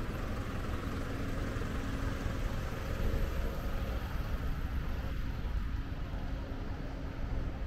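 Road traffic: vehicles running on the street alongside, a steady low rumble with a faint engine hum.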